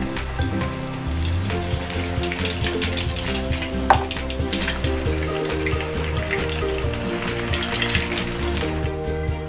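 Potato cheese ball deep-frying in hot oil in a saucepan: the oil sizzles and crackles densely as the ball goes in. A single sharp tick sounds about four seconds in.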